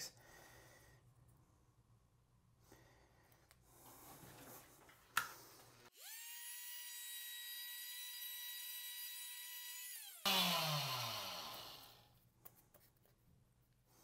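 Handheld power tool starts with a quick rising whine and runs at a steady high pitch for about four seconds. It then turns to a louder rough grinding as it cuts down the plastic push-button valve stem of a shower valve, and winds down to a stop about two seconds later.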